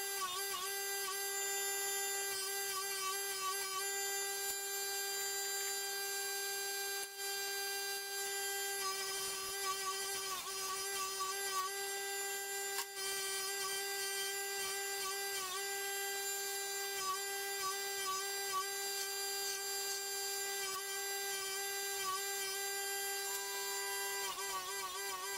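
Small electric power tool running steadily with a constant whine, its pitch dipping and wavering briefly a few times.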